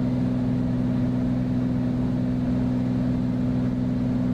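Beechcraft Bonanza's piston engine and propeller, a steady low drone in the cockpit holding an even pitch.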